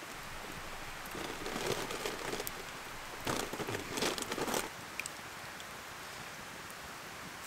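Wood campfire crackling over a steady hiss, with a spell of louder crackling and popping about three seconds in and a single pop a little after.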